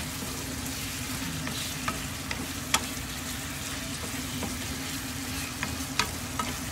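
Food sizzling as it fries in a pan and is stirred, with a few sharp taps of the utensil on the pan, the loudest about three seconds in and two more around six seconds in.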